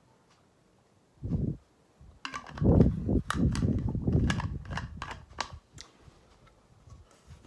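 A plastic drinking bottle handled close to the microphone. There is a low bump about a second in, then about three seconds of sharp crackles and clicks as the screw cap is worked onto the bottle, tailing off.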